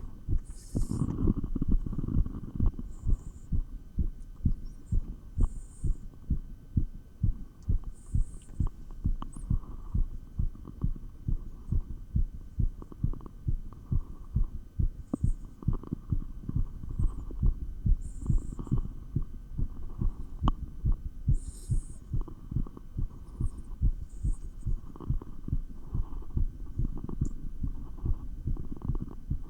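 Human heartbeat heard through a stethoscope chestpiece, fast and regular at about two beats a second, raised by dumbbell exercise, over a steady low hum. Brief scratchy noises come and go now and then.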